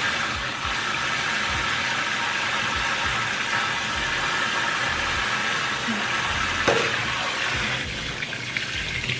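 Kitchen sink faucet running steadily, the stream splashing over hands being washed in the basin. Near the end the pull-down sprayer head is lifted out of the spout, and the sound of the water changes.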